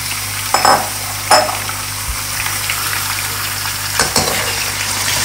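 Raw chicken pieces sizzling in hot oil in a metal wok, just added to the fried onions and spices, while a slotted metal spatula scrapes and knocks against the pan three times.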